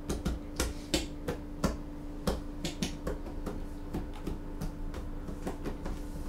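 Irregular clicks and taps of small objects being handled on a kitchen countertop, a few a second, over a steady low hum.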